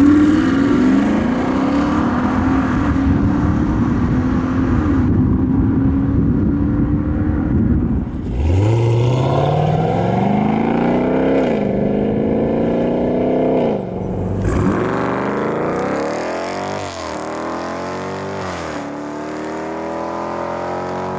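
Exhaust note of a Dodge Durango's 5.7-litre Hemi V8, heard in several cuts. First it runs steadily with slowly falling pitch. About eight seconds in it accelerates with rising pitch, and later it gives a few quick revs up and down.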